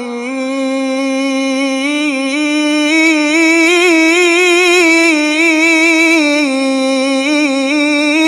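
A man's voice in melodic Quran recitation (tilawah), amplified through a microphone, drawing out the final word of the basmala, 'ar-Rahim', as one long ornamented melisma with wavering, trilling pitch.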